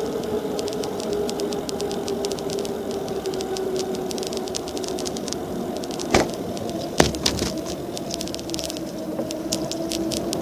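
Bicycle with kevlar parts rolling at about 25 km/h: a steady hum that slowly drops in pitch, with stretches of rapid fine ticking. There are two sharp knocks a little after halfway.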